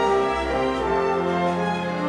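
Orchestral music with brass, French horn to the fore, holding sustained chords that change about a second in.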